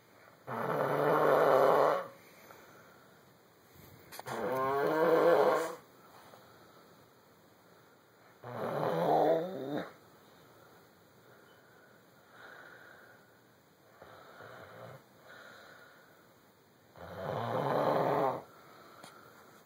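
Snoring: four loud snores of about a second and a half each, spaced irregularly a few seconds apart, with a few fainter snoring breaths between them.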